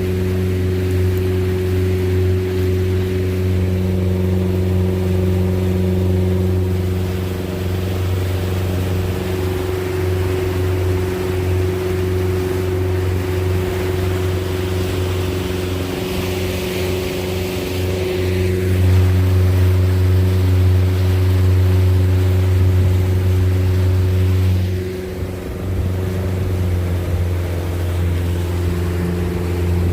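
Motorboat engine running steadily at an even pitch, with a brief drop in level late on.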